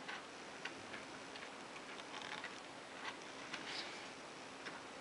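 Faint, scattered small clicks and taps from handling a Casio Databank DB-150 digital watch, its steel back cover and bracelet, as a small screwdriver is brought to the case back.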